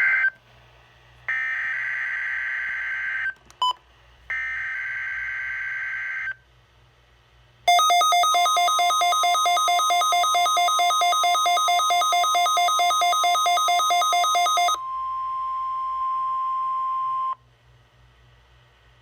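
NOAA Weather Radio Required Weekly Test alert: screeching bursts of SAME digital header data, two of them about two seconds each, then the steady 1050 Hz weather radio alert tone. For about seven seconds a louder, pulsing electronic alarm is laid over the tone, which cuts off about 17 seconds in.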